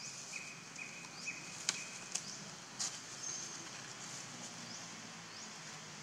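Forest ambience: a run of about five short, even, high whistled notes in the first two seconds and high rising chirps repeating every half second or so, with a few sharp crackles from dry leaves and twigs as the monkeys move over the litter.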